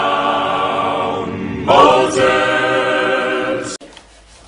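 A choir of voices singing in long held chords, with a new phrase starting a little under two seconds in. The singing cuts off abruptly near the end.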